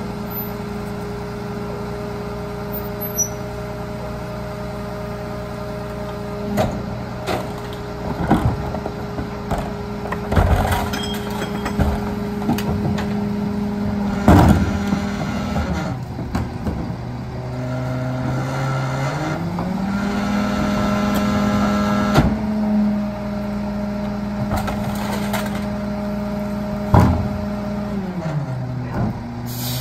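Heil rear-loader garbage truck idling, with a run of bangs and thuds as a trash cart and bags are dumped by hand into the hopper, loudest about halfway through. About halfway through, the engine speeds up to a higher, steady pitch as the packer cycles, then drops back near the end.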